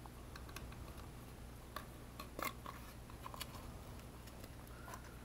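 Faint scraping and a few sharp ticks of a cardboard circuit board being handled as a radio component's wire leads are pushed through it, over a steady low hum.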